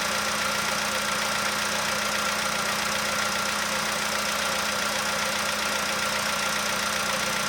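Volkswagen Polo sedan's four-cylinder petrol engine idling steadily as it warms up from a cold start, with a faint knock still there but nearly gone. It is heard only when cold, and the owner suspects the hydraulic lifters.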